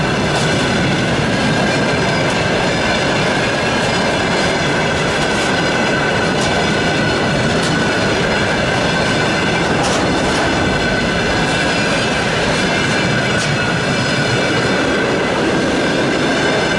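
Freight train of hopper-dispenser cars rolling past: a steady, loud rumble of wheels on rail with a high ringing tone running through it, and scattered sharp clicks as wheels cross rail joints.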